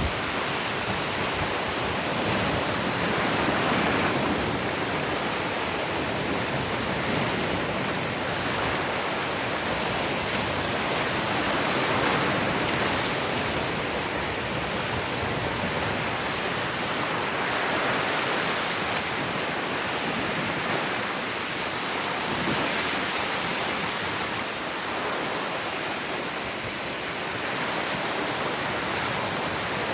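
Ocean surf washing onto a beach: a steady rush of waves that swells gently every few seconds.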